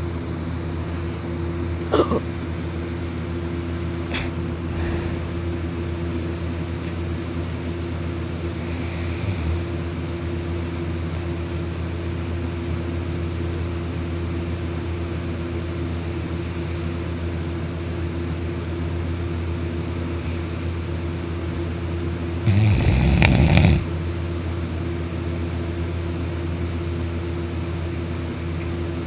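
Loud, continuous low snoring: a steady droning rumble with no clear pauses between breaths. A short, louder burst of noise breaks in about three quarters of the way through.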